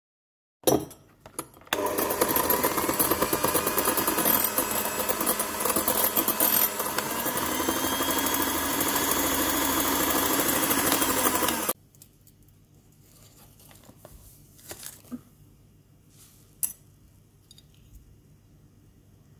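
Electric hand mixer beating cold egg white in an enamel bowl: two knocks about a second in, then the motor and beaters run steadily for about ten seconds and cut off suddenly. A few faint knocks follow.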